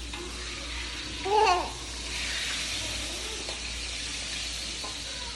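A small child's short babbling vocal sound about a second in, over a steady sizzling hiss of food frying in a pan that grows from about two seconds in.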